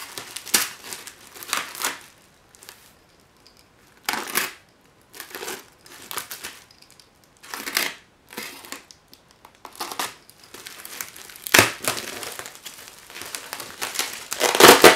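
Plastic wrap crinkling and styrofoam boards rubbing and crunching in irregular bursts as a plastic-wrapped package is pried out from between two styrofoam sheets. The loudest crunches come near the end.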